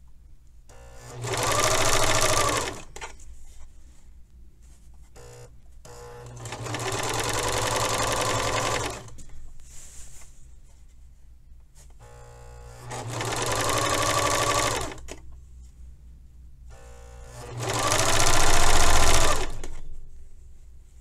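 Pfaff serger stitching a narrow hem in four short runs, its motor speeding up and then slowing down each time, with pauses between. The stop-and-start sewing is how a curved hem is worked: a short length at a time, refolding between runs.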